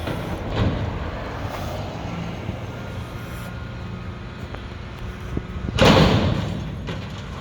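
Mack front-loader garbage truck with a McNeilus body, its diesel engine running steadily, with a loud burst of noise about six seconds in that fades away over about a second.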